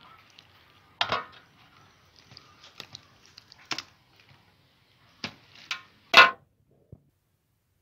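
A knife cutting raw chicken into pieces on a metal tray: a handful of sharp knocks of the blade against the tray, the loudest about six seconds in.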